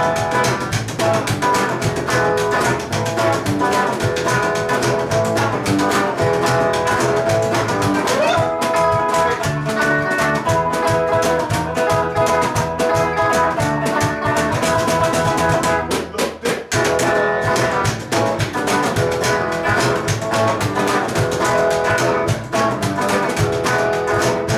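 A live band playing an instrumental passage: a hollow-body electric guitar through an amp, with bass and drums keeping a steady beat. The music stops briefly about sixteen seconds in.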